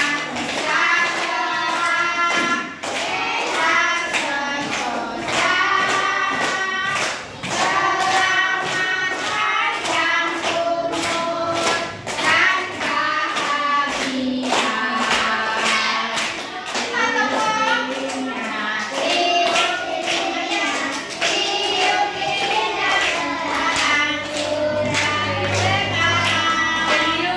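A class of children singing a birthday song together in chorus, clapping their hands in time.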